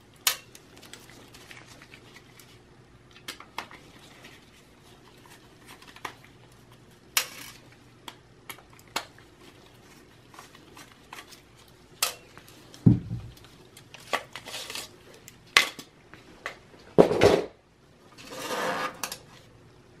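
Phillips screwdriver and small screws clicking and clinking against a 3.5-inch hard drive and the steel drive cage of a Dell PowerEdge T310 server as the drive is unscrewed and lifted out. A few louder knocks come about two-thirds of the way through, and a short scrape near the end.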